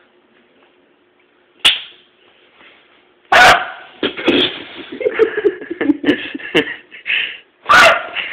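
A dog barking: two loud short barks, about three and a half and eight seconds in, with softer yips between them. A sharp click comes about a second and a half in.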